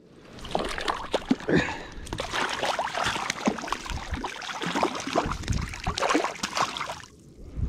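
Shallow water splashing and sloshing as a hooked cutthroat trout thrashes and hands work in the water to unhook it. Starts about half a second in and stops abruptly near the end.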